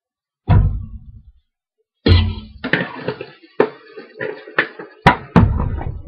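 Cookware and utensils knocking in a kitchen: one heavy thump about half a second in, then from about two seconds in a run of sharper knocks and clanks, each ringing briefly.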